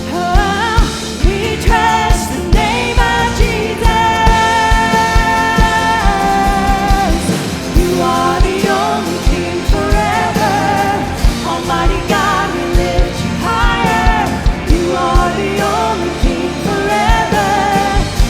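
Contemporary worship song: a lead vocal sung over a full band with a steady drum beat.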